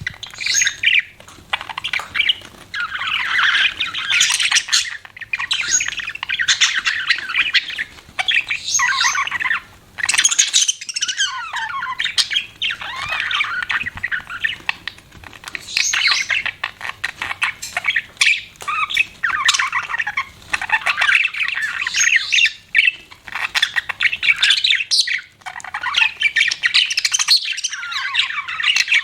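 Budgerigars chattering and chirping: a near-continuous run of fast, warbling calls with short squawks, broken by brief pauses.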